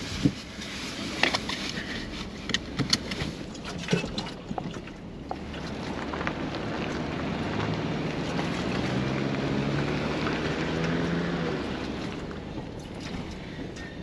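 Ford pickup truck driving on a bumpy dirt road: scattered knocks and rattles as it rolls over ruts during the first few seconds, then the engine pulls harder, its note rising from about six seconds in and easing off near eleven, with steady tyre and road noise.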